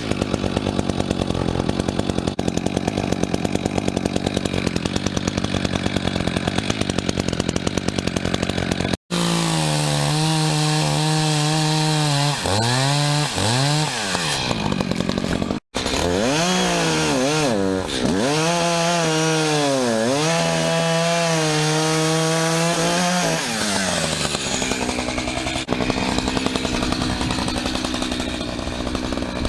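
Echo Timber Wolf 59.8cc two-stroke chainsaw running on its first start. It runs steadily with a fast even pulse for the first nine seconds or so, then is revved repeatedly, its pitch dropping and climbing back several times. The sound briefly cuts out twice, about nine and sixteen seconds in.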